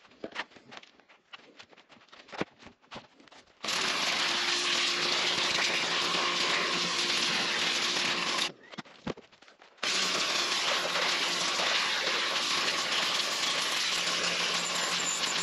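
Stanley SXPW22E electric pressure washer spraying a plastic lawnmower grass catcher: a loud steady hiss of the water jet over the hum of the motor and pump. It comes in two long spells, starting about three and a half seconds in and stopping for about a second when the trigger is let go, after a few seconds of scattered light clicks and knocks.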